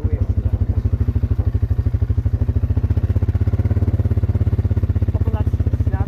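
Quad bike engine running at low revs, a steady, even chugging of about ten beats a second.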